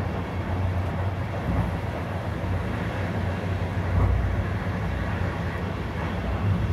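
InterCity passenger coach in motion, heard from inside: a steady low rumble from the wheels and running gear on the track, with a small swell about four seconds in.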